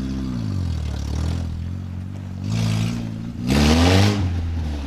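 Lifted Honda Civic's four-cylinder engine revving up and down several times. A loud rush of noise comes as it revs hardest, about three and a half seconds in.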